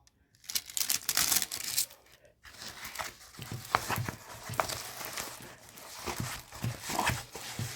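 Packaging crinkling and rustling as it is handled, louder for the first two seconds, then softer rustling with small clicks.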